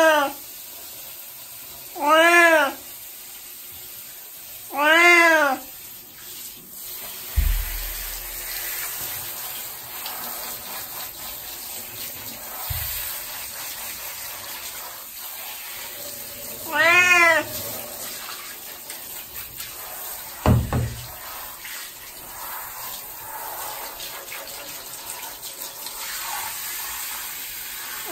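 An 18-year-old cat meowing four times during its bath, each call short and rising then falling in pitch: three in quick succession near the start and one more past the middle. Between the meows a handheld shower head sprays water with a steady hiss, broken by a few dull thumps.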